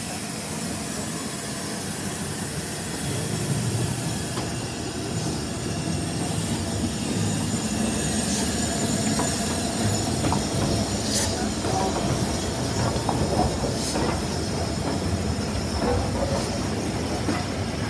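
LMS Fairburn 2-6-4T steam tank locomotive 42073 and its coaches rolling slowly past into the station. There is a steady rumble of wheels on rail, a thin high squeal from the wheels, and a few sharp clanks and clicks over the rail joints in the second half. The rumble grows louder about three seconds in as the locomotive comes alongside.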